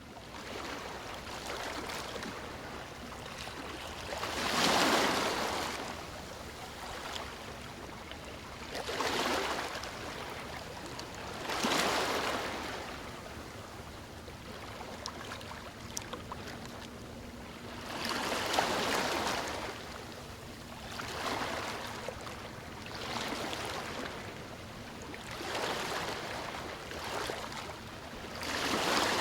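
Sea waves washing in, each wave a swell of hiss that rises and falls, about eight in all, a few seconds apart, the biggest about five seconds in.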